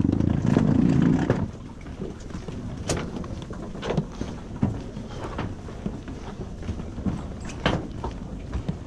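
Footsteps on a wooden dock: irregular short knocks of shoes on the boards, one or two a second. A louder low hum fills the first second and a half, then cuts off.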